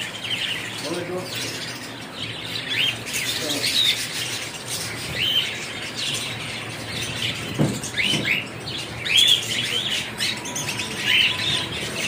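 A cage full of cockatiels and budgerigars calling: short rising-and-falling chirps repeating every second or so over a steady background chatter.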